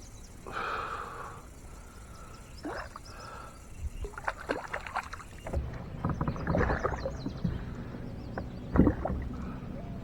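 Irregular splashes and knocks, the loudest near the end, with small birds chirping in the background.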